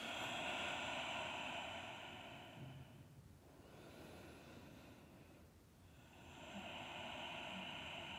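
A woman's slow, audible breathing: one long breath of about three seconds, a pause of about three seconds, then the next breath starting near the end.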